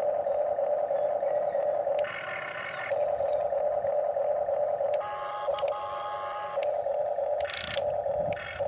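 Huina RC toy excavator's electric motors and gears whining steadily as it swings and lifts its bucket out of the water, the pitch changing several times as other motions engage.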